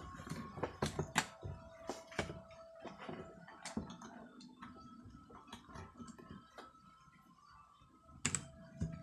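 Keys of a LEAVEN K550 mechanical keyboard being pressed: irregular clacking, dense for the first four seconds, then thinning out, with a quick loud cluster of keystrokes near the end.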